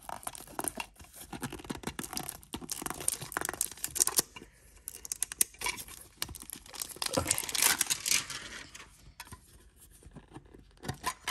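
Plastic shrink wrap being torn and peeled off a small metal trading-card tin. It crinkles in a rapid, irregular string of crackles.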